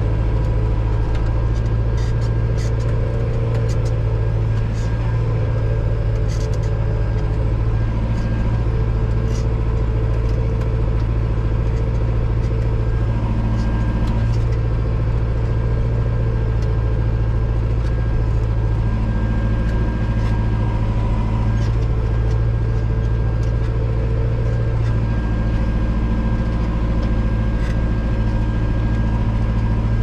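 Valtra N91 tractor's diesel engine running steadily under ploughing load, heard from inside the cab as a constant low drone, with a few faint light clicks and rattles.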